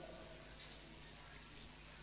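Near silence after a recited phrase: the last echo of the reciter's voice dies away at the very start, leaving faint steady room hum with one soft click a little past half a second in.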